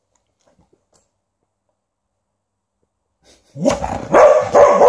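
Dog barking three times in quick succession near the end, each bark loud and falling in pitch: demanding barks at its owner to be let outside.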